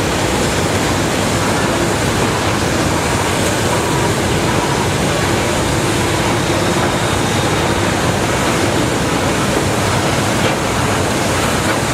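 Cat 320DL excavator running steadily at working speed while digging clay: a loud, even diesel engine and hydraulic rush with a faint steady whine in it.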